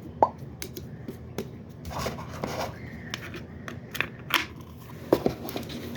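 Plastic fidget toys being handled and set down: scattered light clicks, taps and rustles at an uneven pace.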